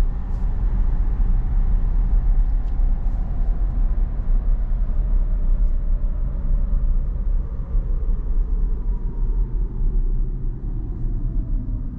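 Steady road and tyre rumble of a Tesla electric car driving, with no engine note. A faint whine slides slowly down in pitch near the end.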